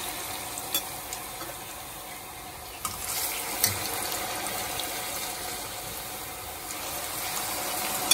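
Banana pieces coated in brown sugar deep-frying in hot oil in a pan: a steady sizzle with a few sharp clicks, the loudest right at the end.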